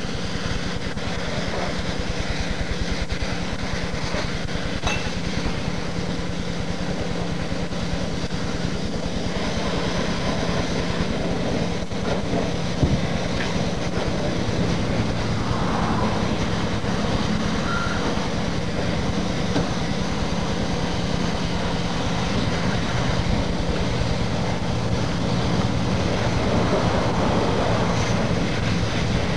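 Motocross bike engines running on the track, a steady mechanical drone with a constant hum, swelling briefly a couple of times as bikes come nearer.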